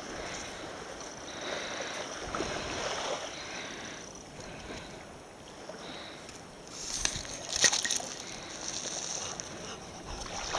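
Seaside wind and surf noise, swelling and easing, with a short cluster of sharp clicks about seven seconds in.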